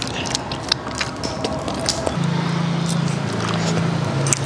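Light clicks and taps of forks and spoons on plates while eating. About two seconds in, a low steady motor hum joins them and keeps going.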